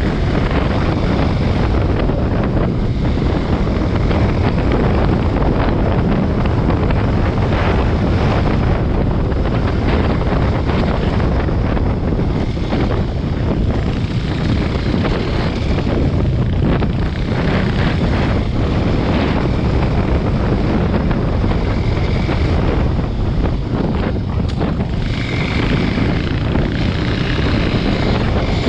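Dirt bike engine running under way on a helmet-mounted camera, mixed with heavy wind buffeting on the microphone; a steady, unbroken noise.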